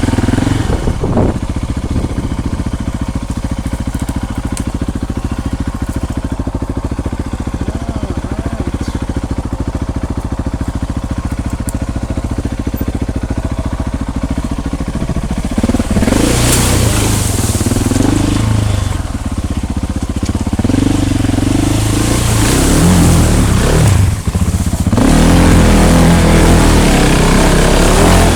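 Motorcycle engine running steadily at low revs, then, about halfway through, revving under load while a loud rush of splashing water joins it as the bike ploughs through the river, louder again near the end.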